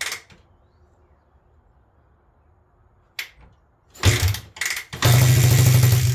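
Suzuki DR125's single-cylinder four-stroke engine being kickstarted on poured-in fuel: a few kicks, then about four seconds in it fires loudly and about a second later runs steadily for roughly a second before cutting out and dying away, not staying running.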